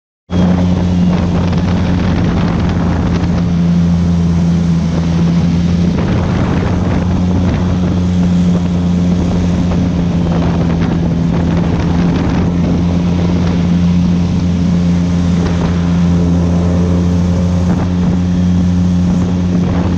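Airboat's engine and air propeller running steadily, a loud, even low hum, with wind buffeting the microphone.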